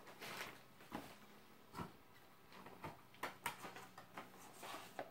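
Plastic Blu-ray cases and their inserts being handled: a series of irregular light clicks and short clatters, with faint rustling between them.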